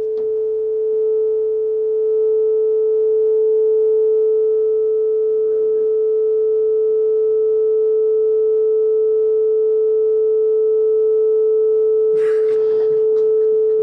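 A loud, steady electronic tone at one constant pitch of about 450 Hz, with fainter higher tones above it, held without a break. About 12 seconds in, a brief rustle or handling noise sounds over it.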